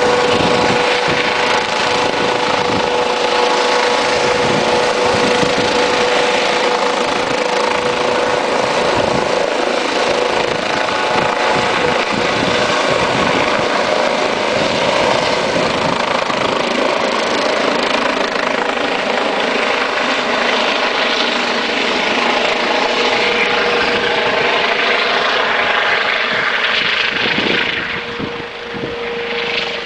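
Rescue helicopter running close by, a steady turbine whine over rotor noise as it lifts off the mountainside and flies away. The sound falls off near the end as it moves into the distance.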